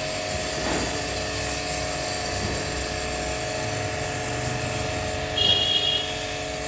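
Electric pressure-washer pump running steadily with a constant hum while a foam gun sprays shampoo foam onto a car's bodywork. A short high chirp sounds about five and a half seconds in.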